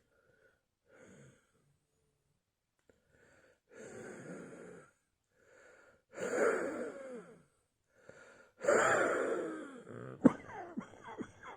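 A person breathing heavily with a wheeze, each breath carrying a wavering whistle and growing louder, the sign of narrowed, congested airways. Near the end come a few short sharp sounds.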